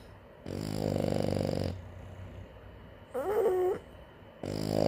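French bulldog snoring in its sleep. A croaky, buzzing snore lasts about a second from half a second in. A short wavering, whistly note comes around three seconds in, and another buzzing snore starts near the end.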